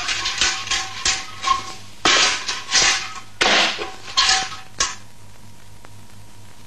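Cartoon soundtrack of sharp knocks and clattering percussive hits mixed with a few held musical tones, the loudest hits spaced well under a second apart. After about five seconds it drops to a quiet stretch with a faint steady hum and a couple of soft clicks.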